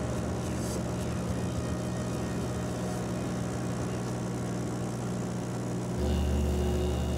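Steady engine drone of a moving vehicle. About six seconds in, a deep, steady droning note of background music comes in over it.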